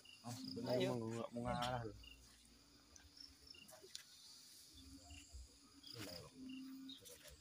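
A person's wordless, wavering vocal moan in the first two seconds, and another short voiced sound about six seconds in, over crickets chirping steadily.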